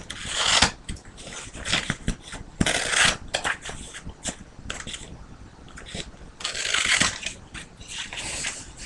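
Sheet of construction paper being cut with scissors and handled: irregular rustling swishes and crinkles with sharp little clicks, loudest at the start, about three seconds in and about seven seconds in.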